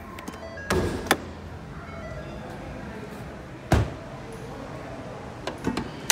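Hood release of a 2018 Ford Expedition: the lever under the dash is pulled with a thunk and a click about a second in as the hood latch pops. A heavy thud follows a little past halfway, and near the end a few sharp metallic clicks as the secondary hood latch at the grille is worked, all over background music.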